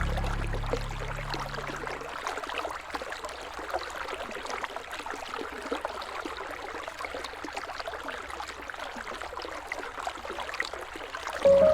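River water rippling and trickling, a steady fine patter of small splashes. Soft sustained music fades out over the first two seconds and comes back just before the end.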